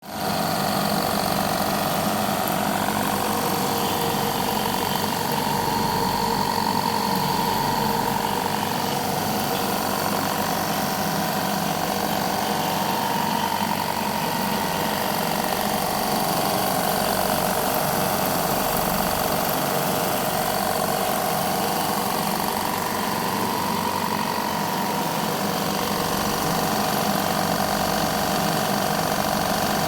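Oil-free air compressor running steadily with a continuous mechanical hum and rattle.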